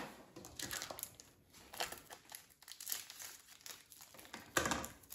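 Thin plastic packaging of a frozen tilapia fillet crinkling as it is snipped open with scissors and pulled apart. The crinkles come irregularly and are loudest near the end.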